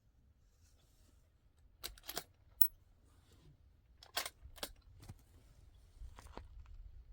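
Several light metallic clicks and clinks, spaced unevenly, of small metal objects being handled.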